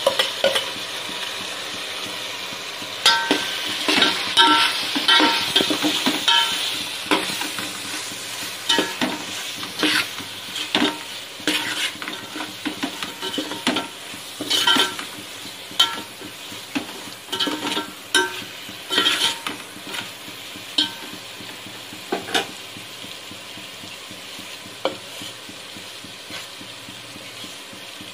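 Tomatoes and potatoes sizzling as they fry in oil in a steel pot, while a steel spoon scrapes and clinks against the pot, stirring in the dry spices. The stirring strokes thin out about twenty seconds in, leaving the steady sizzle.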